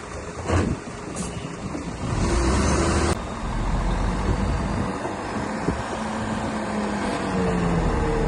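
DH17 C2 LGP bulldozer's diesel engine running under load while it pushes soil. There is a short knock about half a second in and a louder rush that stops suddenly about three seconds in; after that the engine carries on steadily and its pitch shifts near the end.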